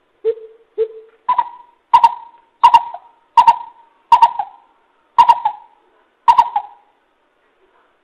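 Coucal calling: a series of deep hooting notes, two lower ones and then about seven higher ones, each under a second apart.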